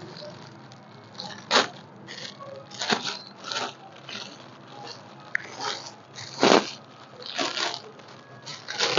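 Clear plastic packaging bag crinkling and rustling in short bursts, about seven over several seconds, as a folded suit is pulled out of it and handled.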